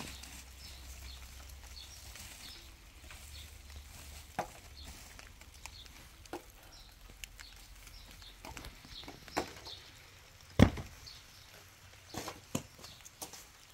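Scattered sharp knocks and clicks over a quiet background, the loudest about ten and a half seconds in, with a low hum during the first few seconds.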